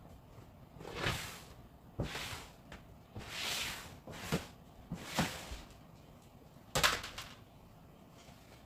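Household handling noises: a string of short rustles and soft knocks about a second apart, then a sharper knock or click just under seven seconds in.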